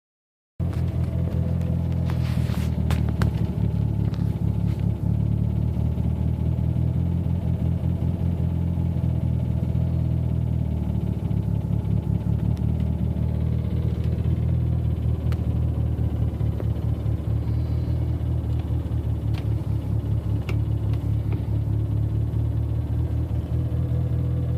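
Car engine idling, heard from inside the cabin: a steady low drone with a few faint clicks scattered through it, the idle noise in question.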